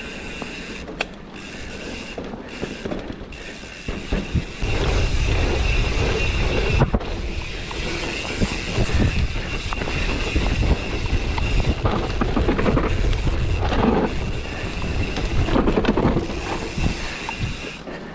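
Mountain bike riding fast down a dirt singletrack: tyres rolling over the dirt, with mechanical rattling and clicking from the bike, and wind on the camera microphone. It gets louder and rougher about five seconds in.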